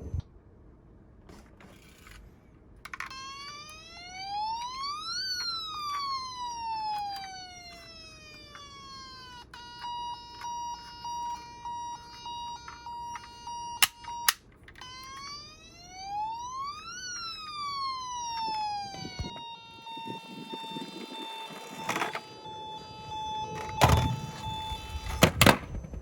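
Toy emergency vehicle's electronic siren: a buzzy wail that rises and falls slowly twice, with a steady beeping tone pattern between and after the wails. A few sharp clicks or knocks, the loudest near the end.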